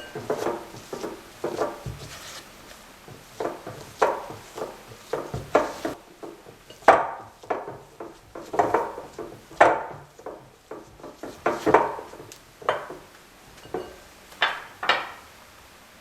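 Kitchen utensils being handled: a series of irregular short knocks and scrapes, one or two a second, with the sharpest ones near the middle.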